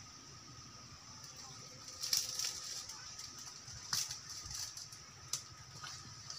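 Footsteps crunching and rustling through dry, dead palm fronds and twigs, a few crackling steps about two and four seconds in, over a steady high-pitched drone.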